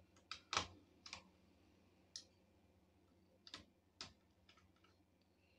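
Light, irregular clicks and taps of small tools and plastic laptop parts being handled during disassembly, about ten in all, the loudest about half a second in.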